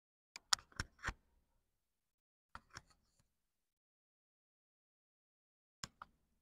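Near silence broken by a few faint, sharp clicks or taps: about four in the first second, two near the middle and two near the end.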